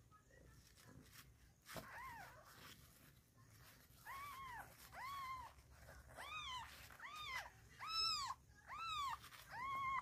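Newborn kitten mewing: eight short, high-pitched calls, each rising and falling in pitch, coming faster and louder in the second half.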